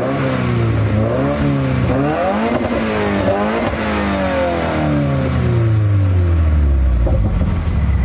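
Subaru WRX's turbocharged flat-four, already warm, revved several times through a Cobb exhaust and downpipe, the pitch climbing and falling with each blip. Near the end the revs fall away and it settles back to a steady idle.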